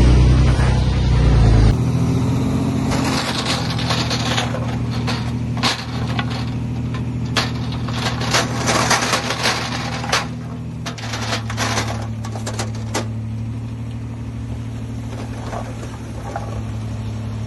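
Heavy earthmoving machine's diesel engine running steadily, with a quick run of sharp cracks and snaps from about three seconds in until near the middle, typical of brush and wood breaking. A heavier low rumble cuts off abruptly under two seconds in.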